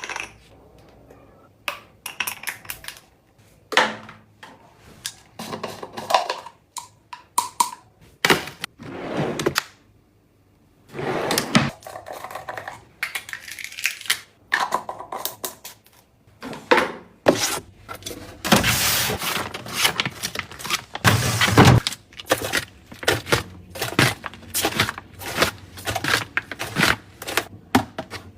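Close-up handling of household objects and packaging: an irregular run of taps, knocks and clicks, with stretches of rustling and scraping, as things are picked up, opened and set down.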